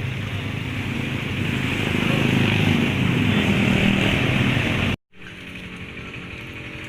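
A vehicle engine running steadily with some wind-like noise, growing louder toward the middle. It cuts off abruptly about five seconds in and gives way to a quieter steady hum.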